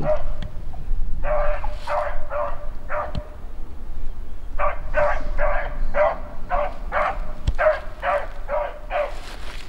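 Rabbit-hunting beagle barking on a rabbit's scent trail in repeated short barks of the same pitch. A cluster of barks comes early, then a pause of about a second and a half, then a steadier run of about two to three barks a second.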